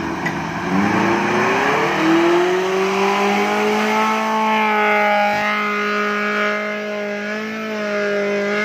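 Off-road 4x4's engine revving up about a second in and held at high revs under load as it climbs a steep dirt hill, a steady high-pitched drone.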